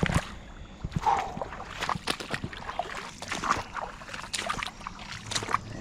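Footsteps wading through a shallow creek: water sloshing and splashing in irregular steps.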